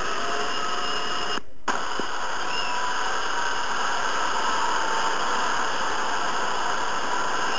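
Hair dryer running: a steady rushing of blown air with a faint motor whine, briefly breaking off about a second and a half in.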